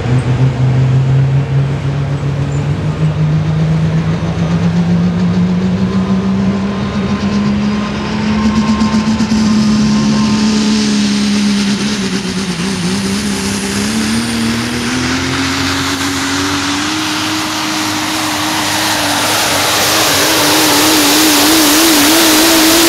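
Super stock diesel 4x4 pickup's 460-cubic-inch turbocharged diesel engine at full throttle under the load of a pulling sled. Its pitch climbs steadily, dips briefly about halfway, then climbs again and wavers near the end as a hiss grows over the last third.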